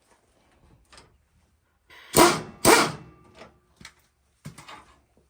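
A dog barks twice, about half a second apart, a little past two seconds in, with a few faint knocks before and after.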